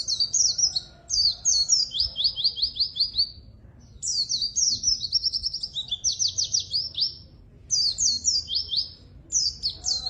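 White-eye (pleci) singing in fast phrases of high, down-slurred notes, with short pauses between the phrases.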